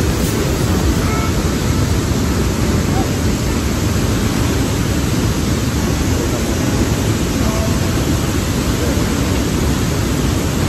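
Steady roar of Detian waterfall: loud, unbroken rushing water, heaviest in the low end.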